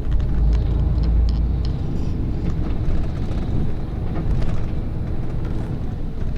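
Coach engine running with a steady low rumble, with a few light clicks and knocks over it.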